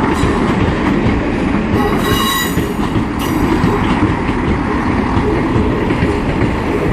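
Class 158 diesel multiple unit running into the station with a steady rumble of engines and wheels. About two seconds in, its wheel flanges give a high squeal that lasts about a second, followed by a short second squeal.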